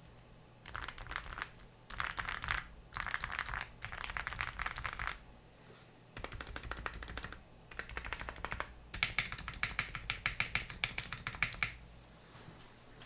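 Mechanical keyboard with Akko Rosewood linear switches being typed on quickly, in six runs of rapid keystrokes with short pauses between them; the longest run is near the end.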